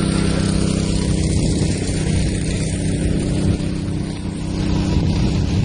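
A heavy engine running steadily, a constant low drone, under a dense, even rushing noise.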